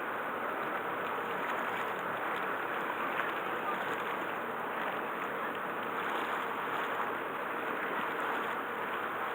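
Steady rushing noise of wind and sea water, even throughout.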